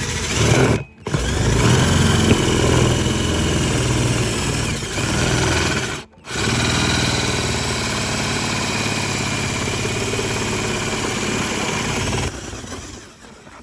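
A small electric motor running at speed with a steady high whine, cutting out briefly twice and dropping away near the end.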